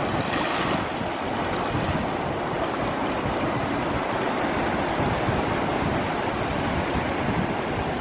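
Ocean surf washing on a beach, with wind buffeting the microphone.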